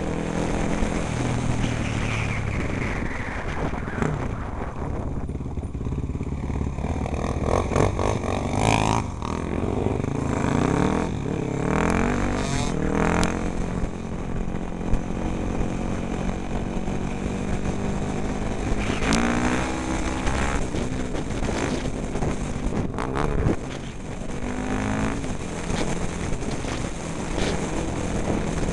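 Enduro motorcycle engine heard from on board, its pitch rising and falling again and again as it revs up and shifts through the gears.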